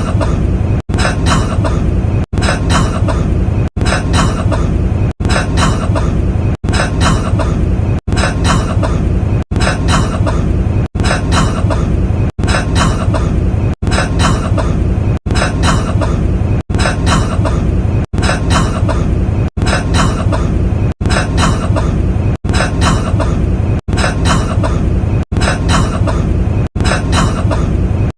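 A man coughing, the same short cough clip repeated in a tight loop about every second and a half, each repeat cut off by a brief gap of silence.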